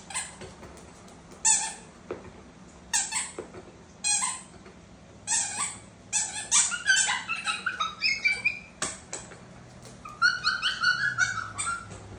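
A pet animal making a string of short, high squeaky calls, spaced out at first and then coming quickly, with a chattering run near the end.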